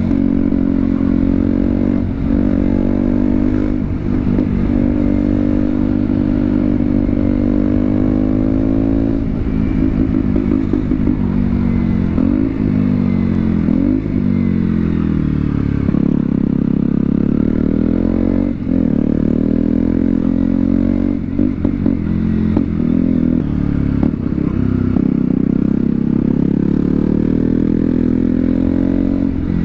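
KTM Duke 125's single-cylinder four-stroke engine under way. Its note climbs with the revs and drops sharply at each gear change. Around the middle it falls away off the throttle, then pulls up through the gears again.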